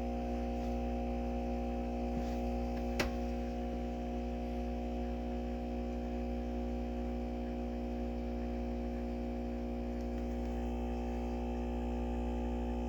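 Fully automatic espresso machine's pump humming steadily as it brews and dispenses coffee, with one short click about three seconds in.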